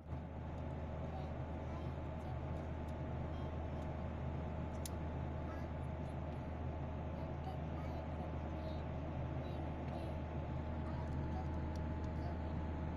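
Steady drone inside a passenger airliner cabin: a low hum with a faint whine over it from the engines and air system. There is one small click about five seconds in.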